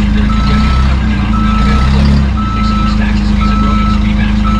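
Forklift backup alarm beeping about once a second, each beep a steady high tone about half a second long, over the low running of the forklift's engine as it reverses.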